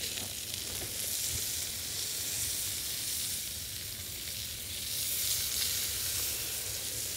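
Bacon-wrapped meatloaf sizzling steadily in oil and bacon fat on a hot flat-top griddle, with a slight swell about five seconds in.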